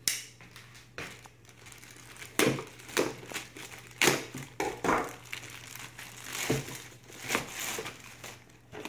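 Clear plastic packaging bag crinkling and rustling in irregular bursts as it is pulled open and stripped off a boxed camera.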